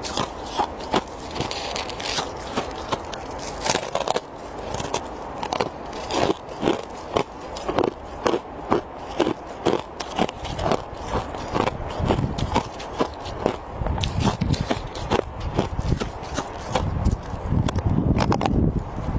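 Packed snow and thin sheet ice being bitten and chewed close to the microphone: a run of sharp, crisp crunches, several a second at times. A low rumble joins in during the second half.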